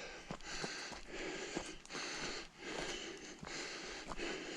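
A hiker breathing heavily while walking, about one breath a second, with a few light ticks of footsteps on the forest path.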